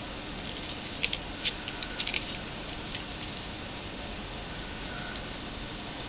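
An African grey parrot's beak making small sharp clicks as it picks at its perch, mostly in a quick cluster about a second in, then a few scattered ones, over a steady low room hiss.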